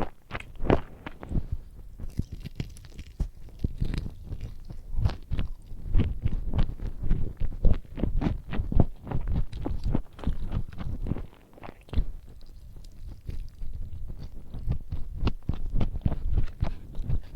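A person chewing and biting food close to the microphone, a steady run of short crunchy crackles.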